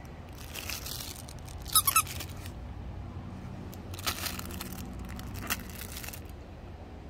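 Plush dog toy squeaking three quick times about two seconds in. Short bursts of rustling from the toy being handled come before and after.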